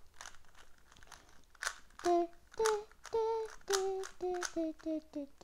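A boy humming a short tune of about eight notes, starting about two seconds in and stepping lower near the end, over the clicking of a cheap plastic Rubik's cube as its layers are turned.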